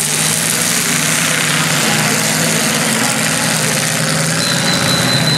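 Several demolition derby cars' engines running steadily, a dense noisy haze over the engine hum, with no crashes heard. A thin, steady high tone comes in near the end.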